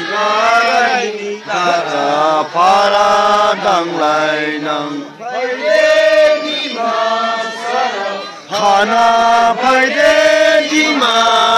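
Slow chanting by men's voices, long held notes in short phrases broken by brief pauses, over a steady low drone.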